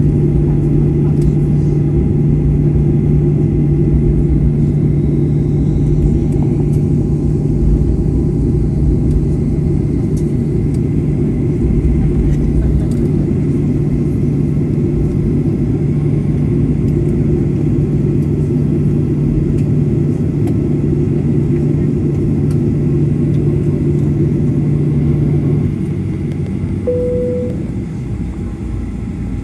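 Cabin noise inside a Southwest Airlines Boeing 737 after landing: a loud, steady rumble from the engines and air systems with a steady hum that cuts out near the end, after which the cabin goes quieter. A single short chime sounds just after that.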